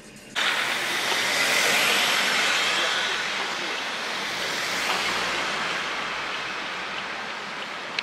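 A pickup truck passing close by, a steady rush of tyre and engine noise. It comes in suddenly, swells over the first couple of seconds, then slowly fades.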